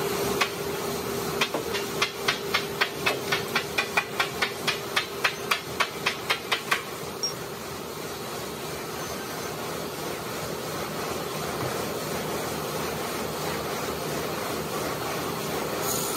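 Hand hammer striking a steel tool at the base of a marble block, a run of about fifteen sharp, ringing blows at roughly three a second that stops about seven seconds in. A steady machine hum continues underneath.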